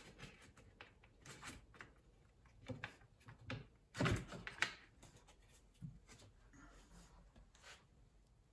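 Ceramic subway tile being handled and pressed into place on the wall: scattered light knocks and clicks, with one louder thump about four seconds in.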